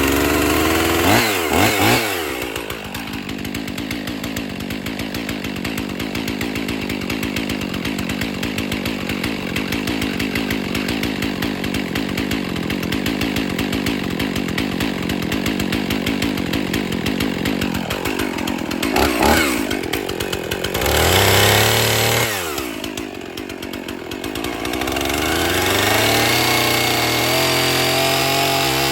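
Husqvarna 55 two-stroke chainsaw running at a fast idle, revved up briefly about a second in and twice more past the middle, with the revs climbing again near the end.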